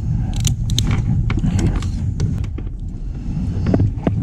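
Short metallic clicks and knocks of fishing pliers and a fish-lip gripper while unhooking a tautog on a kayak deck, over a steady low rumble. The clicks come thickest in the first second and a half and again near the end.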